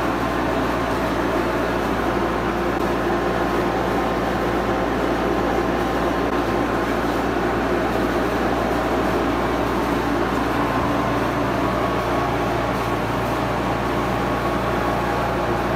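Steady hum and rush of a room air conditioner, with no change in level.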